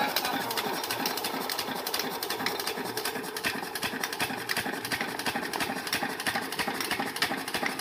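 12 hp single-cylinder diesel engine running steadily with a rapid, even firing beat, belt-driving a water pump.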